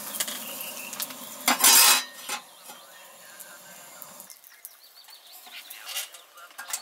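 Metal clinks and clatter from a tent stove and its metal fittings being handled, with one loud scraping rush about a second and a half in, then scattered lighter clicks.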